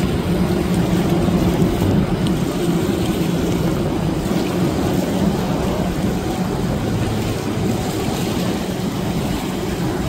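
Center-console fishing boat's outboard motor running at speed with a steady drone, over the rush of water and wind.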